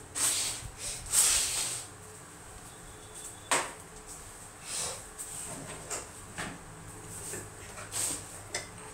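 Rustling and handling noises off to the side: several short swishes, the loudest about a second in, and a sharp click about three and a half seconds in, as someone handles things while setting up cables.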